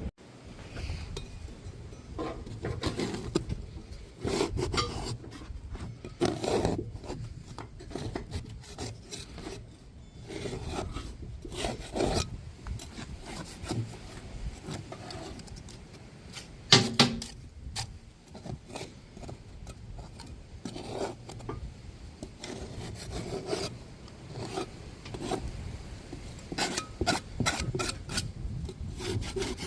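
Hand scraper scraping caked grass and dirt off the underside of a Toro mower deck in irregular, repeated strokes, with one sharper, louder hit a little past halfway.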